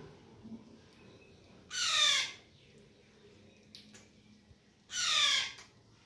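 Two loud, harsh parrot squawks about three seconds apart, each about half a second long and sliding down slightly in pitch.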